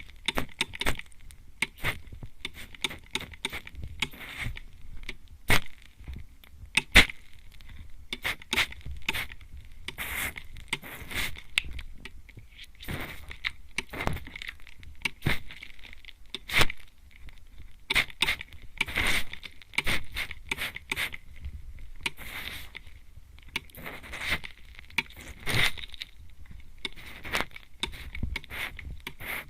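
Plastic mist spray bottle sprayed at close range into the ear of a microphone, over and over at an irregular pace: short hissing spritzes mixed with sharp clicks.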